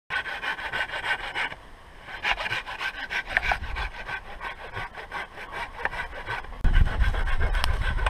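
Hand saw cutting through a standing moso bamboo culm near its base, in quick back-and-forth strokes with a short pause about a second and a half in. A low rumble comes in abruptly near the end and is louder than the sawing.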